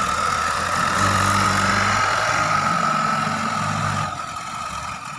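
JCB 3DX backhoe loader's diesel engine running steadily, with a steady high whine over it; it gets a little quieter about four seconds in.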